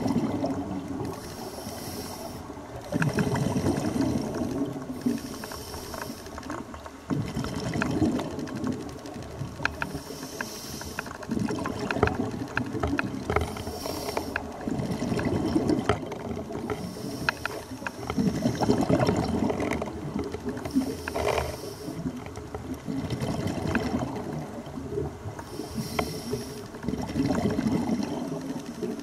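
Scuba diver breathing through a regulator underwater: a hissing inhale alternates with a burst of exhaled bubbles about every four seconds, with scattered crackling clicks between.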